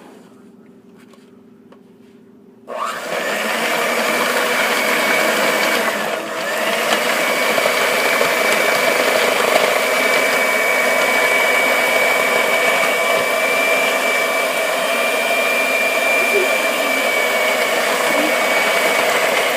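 Electric kitchen mixer switched on about three seconds in, beating cookie dough and running steadily with a high whine, with a brief dip in level near the six-second mark.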